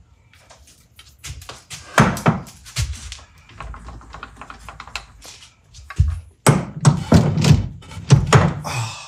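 Heavy true-set lathe chuck being fitted onto the lathe's D1 camlock spindle nose: a series of metal knocks and thunks, one about two seconds in and a dense run of them from about six seconds in, with lighter clicks between.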